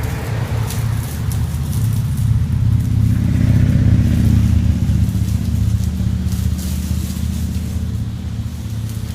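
EGO 56V battery-powered lawn mower running, its spinning blade giving a steady low hum that grows louder for a couple of seconds in the middle.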